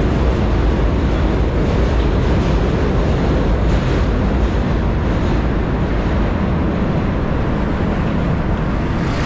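Steady rumble of bridge traffic, with a train on the tracks beside the walkway.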